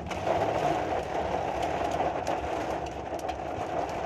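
Rain mixed with hail pelting a pickup truck's roof and body, heard from inside the cab: a dense, steady drumming with a few sharper hailstone hits.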